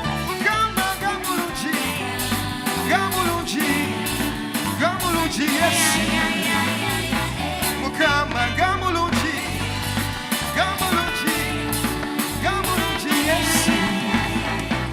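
Live band playing an upbeat song with drums, bass and guitar, a voice singing over it.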